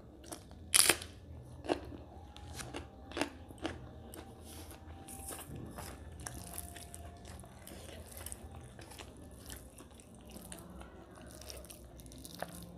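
Close-miked mouth sounds of a person eating rice and mutton curry by hand: chewing and lip smacks with sharp crunchy clicks, loudest about a second in and a few more over the next three seconds, then softer. Between mouthfuls, fingers mix rice on a steel plate.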